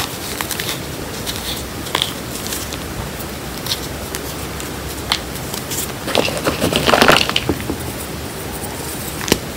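Reformed gym chalk chunks and loose powder crumbling and crunching under fingers: scattered soft crackles, with a louder spell of dense crunching past the middle and a sharp crack near the end.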